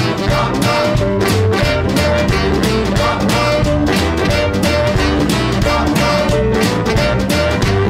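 Recorded swing / jump-blues band playing an instrumental passage: saxophones over upright bass, guitar and a steady driving drum beat.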